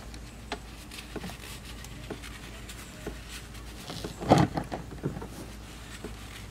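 Light clicks and rubs of hands working at a van engine's oil cooler line fitting, with one louder knock about four seconds in.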